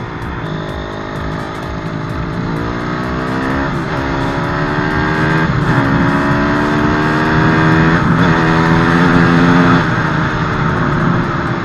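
Honda CRF 250 four-stroke single-cylinder dirt bike engine accelerating through the gears: the engine note climbs, drops sharply at upshifts about four, six and eight seconds in, and eases off as the throttle closes near the end.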